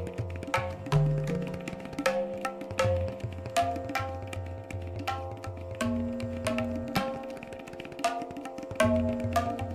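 Instrumental background music: hand-drum percussion playing a steady rhythm of sharp strokes with low bending bass notes, over a held drone.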